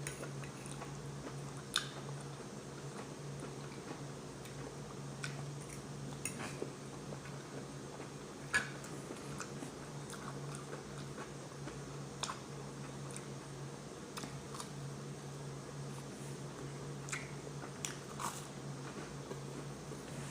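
A person chewing and eating food close to the microphone, with scattered soft clicks and smacks, the loudest about two seconds in and again near nine seconds, over a steady low background hum.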